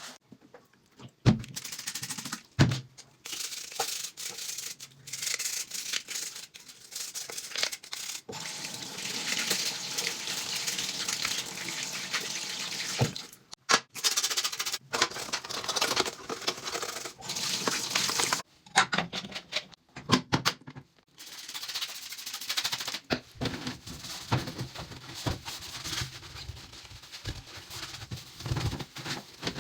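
Cleaning a washing machine: scrubbing with a brush and sloshing water, in several short stretches cut together, with a few knocks.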